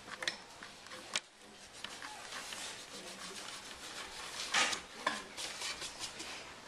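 Rubbing and scraping of things handled on a wooden school desk, with small ticks and knocks and one louder scrape about four and a half seconds in.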